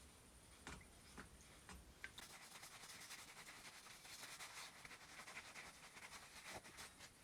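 A few faint light taps, then a quiet rasping rub against a hard surface that lasts about five seconds and stops near the end.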